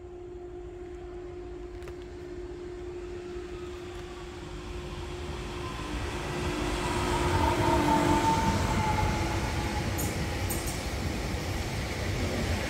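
CRRC Sirius electric multiple unit (class 665) passing by, growing louder as it approaches and loudest about eight seconds in as the front cars go past. Wheels rumble on the rails under a steady humming tone that is joined by a higher tone as the train comes alongside, with a few brief clicks near the end.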